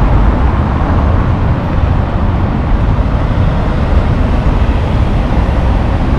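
Road traffic: cars driving past on cobblestone paving, a steady rumble of engines and tyres.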